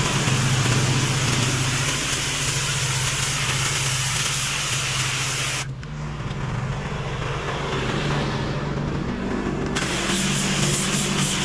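Pressure washer's engine running steadily under the loud hiss of the water spray. The spray cuts off a little past halfway, leaving the engine hum alone for about four seconds, then starts again.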